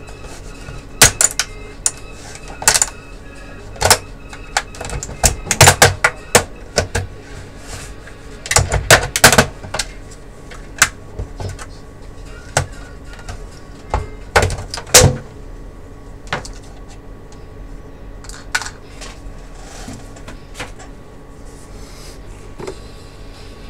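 Sharp clicks and knocks of the opened Dell E177FPb LCD panel assembly and its sheet-metal shield being handled and shifted on a workbench. The knocks come in quick clusters through the first fifteen seconds or so, then thin out to a few scattered clicks.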